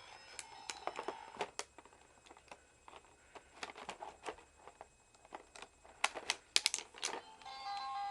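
A string of sharp clicks and taps, plausibly from Sailor Moon plastic toys being handled, with a cluster of quick clicks about six to seven seconds in. Near the end a simple beeping electronic tune starts.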